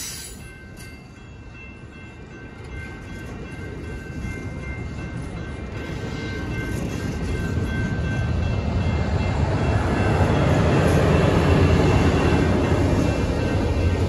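Amtrak Capitol Corridor bilevel passenger cars rolling past a grade crossing, with the crossing bell's steady ringing tones over the rumble at first. The rumble swells steadily to its loudest about ten to twelve seconds in, as the trailing Siemens SC-44 Charger diesel locomotive pushing the train goes by.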